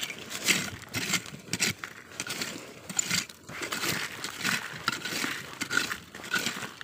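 Dead leaves and gravelly soil rustling and scraping in many irregular short crackles as leaf litter is swept aside by hand, clearing the ground to look for hed phao (earthstar) mushrooms underneath.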